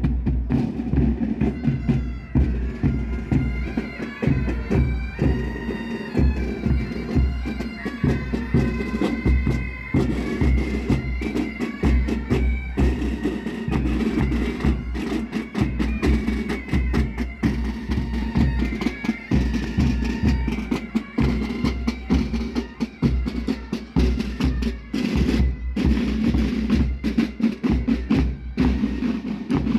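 Pipe band playing: bagpipes sounding a melody over their steady drones, with bass drums and side drums beating in time.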